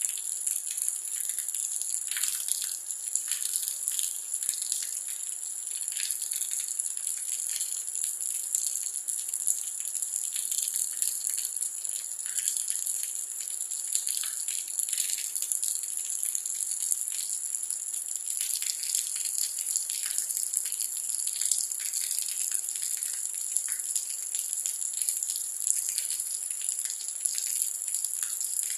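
Steady rain falling: an even high hiss with many small drops pattering and ticking throughout.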